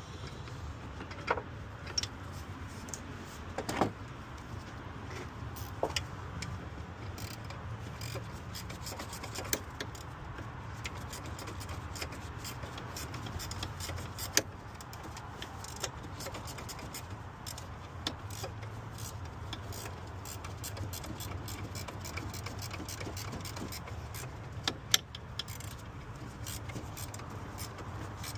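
Metal hand tools and fasteners clinking now and then during alternator installation work on a car, over a steady low hum. The sharpest clinks come about 1, 2, 4 and 6 seconds in, then around 14 and 25 seconds.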